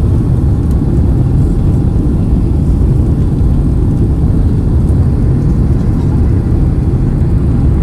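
Steady low rumble of a Boeing 767's engines and rushing air, heard from inside the passenger cabin on final approach.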